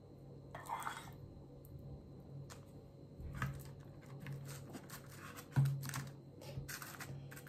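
Metal spoon scooping cream onto shortbread biscuits in a glass baking dish and spreading it, with soft scrapes and light clicks of the spoon against the glass; the sharpest click comes a little past halfway. A low steady hum runs underneath.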